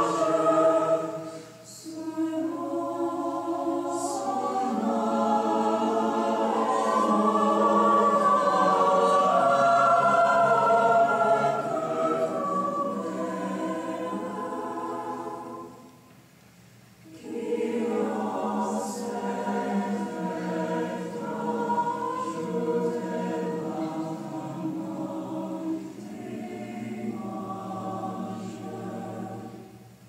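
A choir singing long held chords in slow phrases. It breaks off briefly about two seconds in and again about halfway through.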